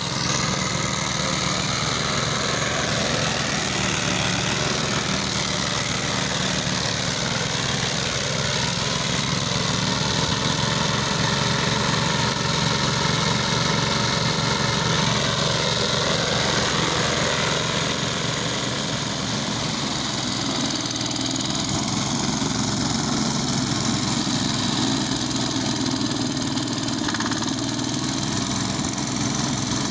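Push lawn mower's small engine running steadily.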